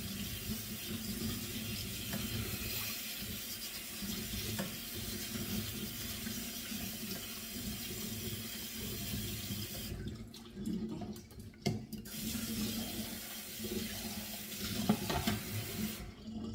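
Kitchen tap running into a sink as rice is rinsed in a metal strainer. The water stops for a couple of seconds about ten seconds in, runs again, and cuts off near the end, with a couple of sharp knocks in between.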